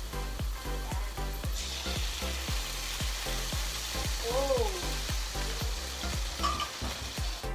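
Ground meat frying in oil in a frying pan, the sizzle swelling louder about one and a half seconds in. Background music with a steady beat plays under it.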